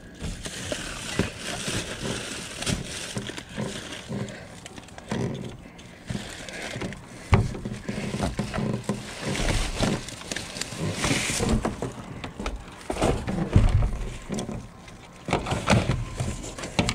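Plastic garbage bags rustling and crinkling close up as hands dig through dumpster trash, with irregular knocks of items being moved and a few dull thumps.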